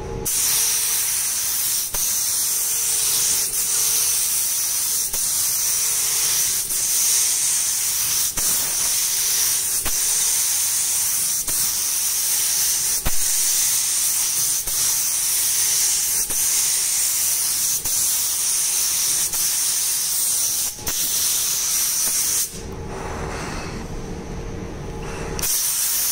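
Gravity-feed paint spray gun laying on a full wet coat of primer: a steady, loud hiss of compressed air and atomised paint, with short breaks every second or two. The hiss stops about 22 seconds in and starts again for a short pass near the end.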